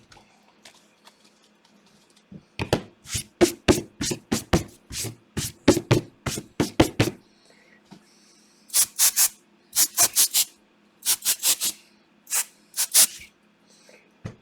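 Trading cards being slapped and tapped on a tabletop: a quick run of sharp taps, about four or five a second, then short groups of two or three taps.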